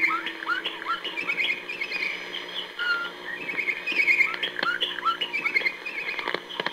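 Radio RSA's interval signal received on shortwave: a looped recording of bokmakierie bird calls, with chattering chirps, short rising whistles and a brief steady whistle, repeating about every four seconds.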